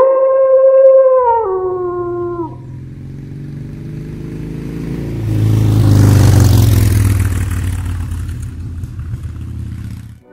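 A wolf howl: one long call that drops in pitch twice and ends about two and a half seconds in. Under it a motorcycle engine's low rumble starts about a second in, swells to its loudest around the middle, then fades away and stops.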